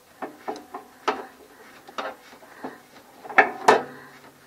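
Plastic water-line fittings being handled and hand-tightened onto an RV water heater's connections: a string of sharp clicks and knocks, some ringing briefly. The loudest two come close together about three and a half seconds in.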